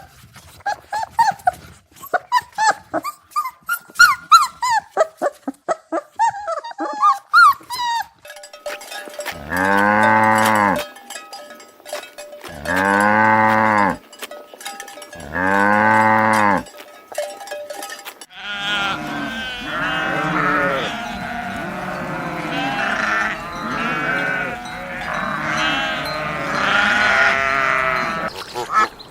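Farm animals calling. Quick short chirps and clucks come first, then three long, level calls about three seconds apart, then from about two-thirds of the way in many animals call over one another.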